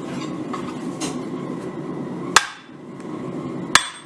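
Blacksmith's hammer striking steel on an anvil twice, a little over a second apart, each blow ringing briefly, over a steady rushing noise.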